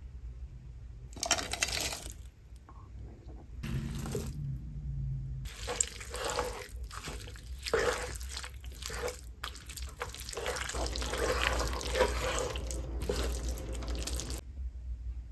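A plastic bag of frozen mixed vegetables crinkling. Then the vegetables go into a skillet of thick, creamy chicken filling, and a wooden spoon stirs the wet, chunky mixture in a long run of scraping, sloppy stirring noises that stop shortly before the end.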